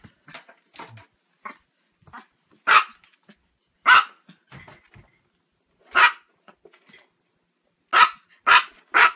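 Chihuahua barking in short, sharp single barks, six loud ones a second or two apart with the last three in quick succession near the end, and fainter yips between.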